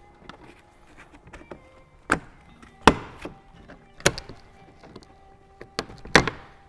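A plastic underbody cover on a car being pulled free, giving about four sharp clacks and knocks spread over the few seconds.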